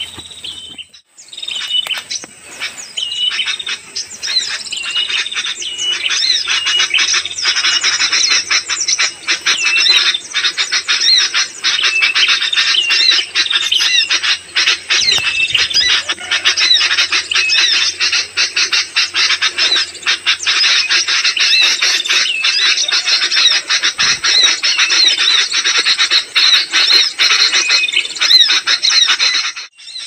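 Dense, agitated chorus of bird chirps and chatter, many calls repeating fast over one another: the noisy sooty-headed bulbul (kutilang) alarm chatter used as a bird-trapping lure, played through an MP3 speaker among live birds drawn to it. It starts about a second in.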